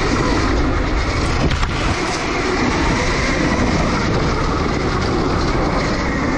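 Riding noise from a homemade electric dirt bike (a converted Honda CR) moving along a dirt forest track: a steady, loud rumble of tyres and wind.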